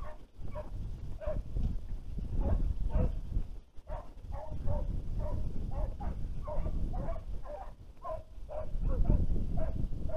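Hunting hounds baying in the reeds, a steady run of barks about two or three a second, the sound of hounds giving voice on an animal's trail. Wind rumbles on the microphone underneath.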